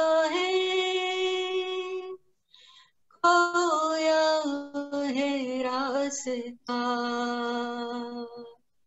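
A woman singing a slow song unaccompanied, holding long notes that slide between pitches, in three phrases with short pauses for breath between them.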